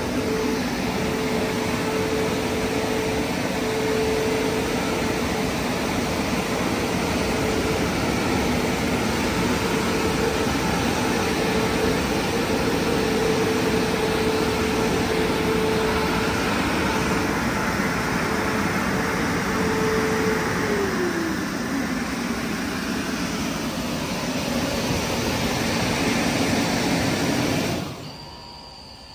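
Christ Genius Vitesse car wash dryer blowers running, a loud steady rush of air with a steady whine. About two-thirds of the way through, the whine slides down in pitch and fades. The blowing stops abruptly shortly before the end.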